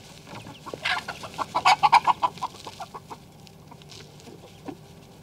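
A flock of hens clucking while being fed. A quick run of loud, sharp calls comes between about one and two and a half seconds in, with scattered softer clucks around it.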